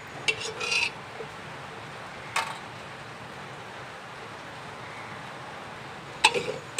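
A few sharp metallic clinks and taps of a utensil against a steel pressure cooker as boiled jackfruit seeds are lifted out into a bowl. A cluster comes just after the start, one a couple of seconds in, and more near the end, with a steady faint hiss between.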